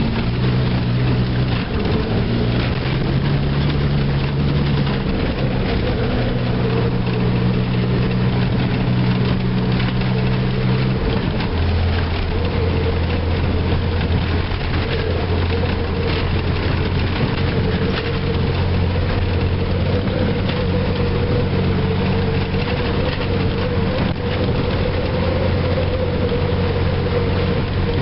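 Ford F-150 pickup's 300 cubic-inch inline-six engine running steadily under load as the truck drives through snow in four-wheel drive, with continuous tyre and road noise. About eleven seconds in, the engine note changes and settles into a lower, steady drone.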